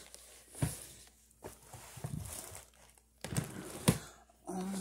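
Handling noise: fabric rustling and things being moved about among plastic drawers, with a few sharp knocks, the loudest a little before the end. A low voice starts just before the end.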